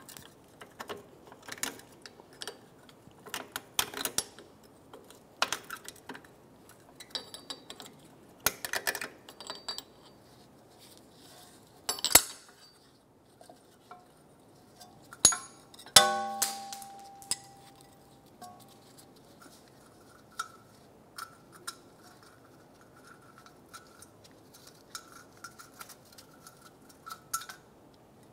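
Metal clinks and clicks of drum-type parking brake hardware worked by hand: hold-down clip and pin, springs and shoes knocking against the steel backing plate. The clicks come irregularly, and one sharp metal clank about sixteen seconds in rings briefly.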